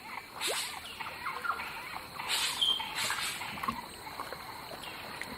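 Nature ambience of small animal calls: scattered short, high chirps and squeaks, with two brief rushes of noise, one about half a second in and one around two and a half to three seconds in.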